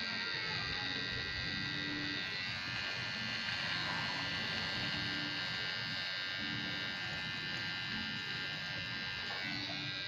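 Electric hair clipper running with a steady buzz as it is worked over hair.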